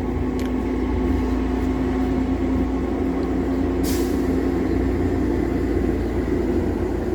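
Steady low background hum and rumble of running machinery, with a short hiss about four seconds in.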